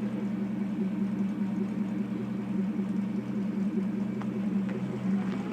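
1984 Porsche 928S V8 engine running steadily as the car reverses. The automatic transmission is warmed up and makes no unusual noise in reverse.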